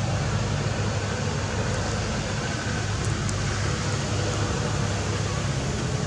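Steady outdoor background noise: a constant rushing hiss with a low hum beneath it.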